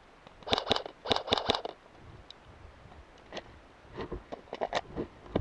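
Airsoft guns firing: two quick bursts of sharp cracks about half a second and a second in, then scattered single shots and clicks from about three and a half seconds on.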